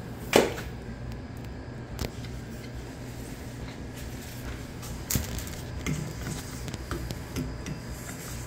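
Steady low hum of commercial kitchen equipment. A loud thump comes about half a second in, a sharp click at about two seconds, and scattered lighter knocks and clicks fall in the second half.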